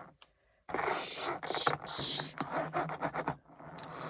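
Scraping and rubbing with many small clicks, starting after a brief silent gap and fading out near the end.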